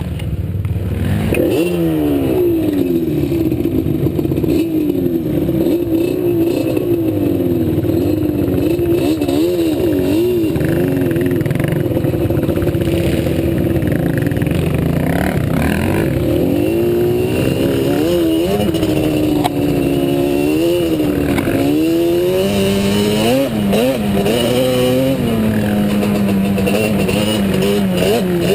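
ATV engine running under load while riding a trail, its pitch rising and falling over and over as the throttle is worked, settling to a steadier, lower note near the end.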